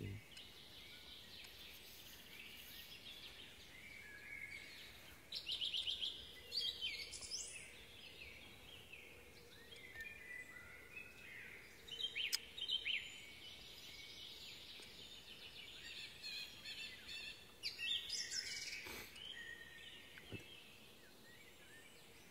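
Small songbirds chirping and trilling in woodland, quick high calls coming in short runs every couple of seconds over faint steady background hiss, with a few faint clicks.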